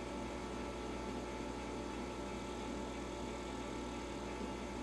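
Steady electrical mains hum with a faint even hiss, unchanging throughout.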